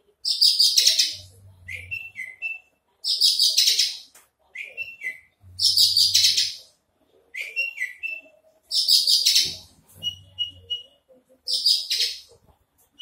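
Caged Javan bush lark singing during its wing-fluttering display. Five loud, scratchy, buzzing phrases of about a second each come roughly every three seconds. Short clear down-slurred chirps fall between them.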